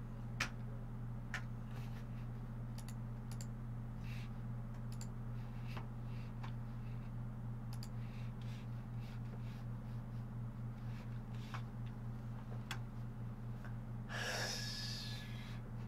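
A steady low electrical hum, with scattered faint clicks of a computer mouse and keyboard. Near the end there is a short breathy burst of noise.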